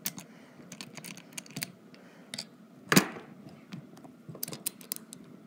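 Handling noise from a phone being moved and set up: irregular light taps and clicks, with one louder knock about three seconds in.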